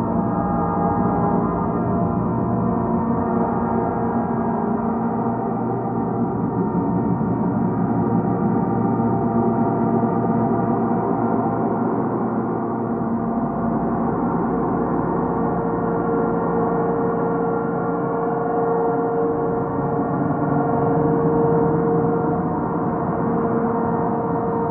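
Electro-Faustus Drone King drone synthesizer played through a Hologram Microcosm pedal, a dense, steady drone of many overlapping held tones washed in delay and reverb. One mid-pitched tone swells stronger in the second half.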